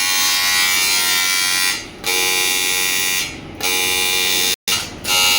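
AC TIG welding arc on aluminium, buzzing steadily. The arc stops briefly about two seconds in, again past three seconds, and near the end, where there is a moment of silence, re-striking each time.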